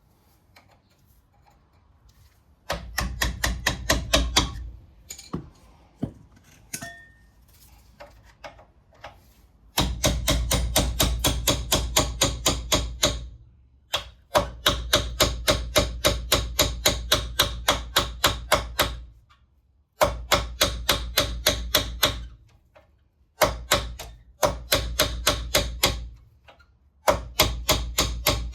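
Rapid metal-on-metal hammer blows, about five a second in bursts of a few seconds, driving out a brake caliper's pad retaining pin with a hammer and punch.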